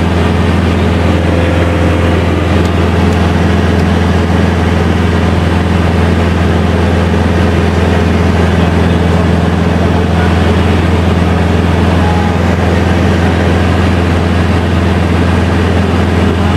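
Ultralight tow plane's engine and propeller running steadily in cruise, a loud, unchanging low drone heard from inside the cockpit.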